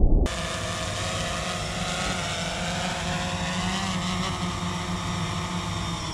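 DJI quadcopter drone's propellers whining steadily, a whine of several tones that wavers slightly in pitch.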